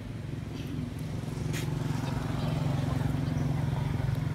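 A motor vehicle engine running steadily, growing louder over the first couple of seconds, with a single sharp click about a second and a half in.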